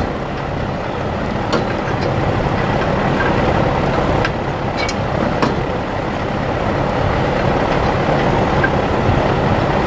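A steady low background noise throughout, with a few scattered light metallic clicks as an open-end wrench turns a rusty nut loose on a hay rake's roller-bar bearing bolt.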